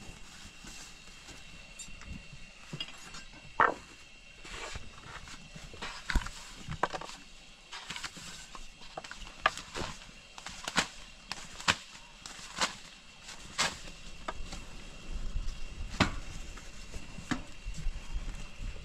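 Thin wooden rolling pin knocking and clacking against a round wooden board as flatbread dough is rolled out thin and wrapped around the pin, a string of sharp wooden taps, about one a second through the middle, with a faint steady high tone underneath.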